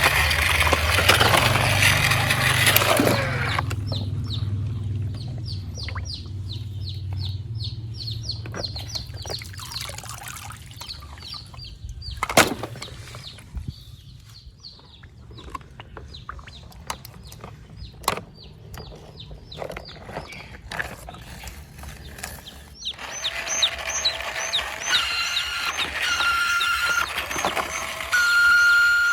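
A baby bird cheeping in many short, high, falling chirps, several a second, after about three seconds of rumbling motor noise at the start. A sharp click is heard about 12 seconds in, and from about 23 seconds in the calls turn fuller and lower, ending on a held tone.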